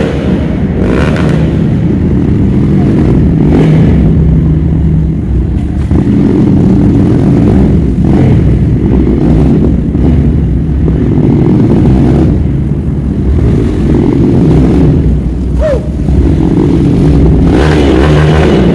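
Motorcycle engine running steadily under way, with a low steady hum and rumble.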